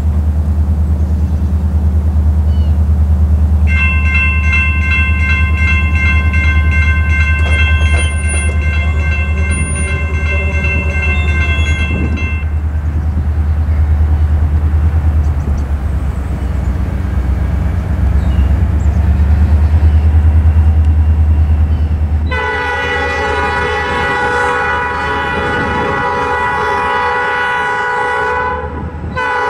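Approaching diesel freight locomotive, an EMD SD40-2, sounding its air horn for the crossing: one long chord from about 4 to 12 seconds in, then another from about 22 seconds in, with a brief break near the end. A heavy low rumble underlies the first part and drops away as the second blast begins.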